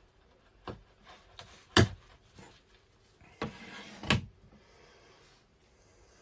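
Wide bench chisel pressed and chopped down through thin cardboard onto a wooden bench: a few sharp knocks in the first two seconds, then a short scraping, tearing stretch as the cut cardboard template is pulled free, ending with a knock as the chisel is set down.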